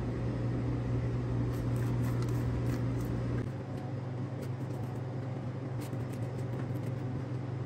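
Steady low hum of kitchen machinery, with a deeper rumble under it that drops away about three and a half seconds in. A few faint light taps sound over it.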